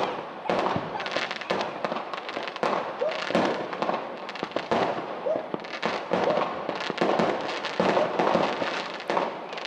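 Fireworks going off in a dense, unbroken run of bangs, pops and crackles, many per second, with louder bangs standing out every second or so.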